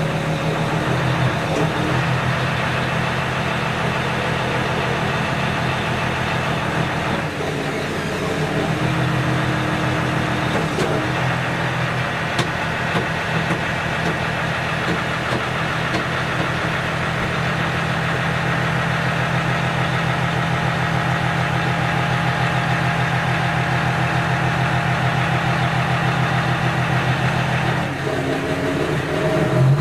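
Goldhofer towbarless aircraft tug's engine running steadily, with a few brief higher tones coming and going over it.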